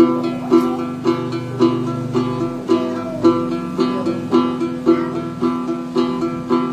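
Đàn tính, the Tày gourd-bodied long-necked lute, plucked in a steady repeating pattern of about two notes a second.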